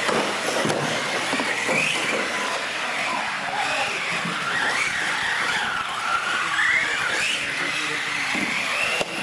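Radio-controlled UTVs racing on a concrete floor, their motors whining in a pitch that keeps rising and falling with the throttle over a hiss of tyres. A single sharp knock near the end.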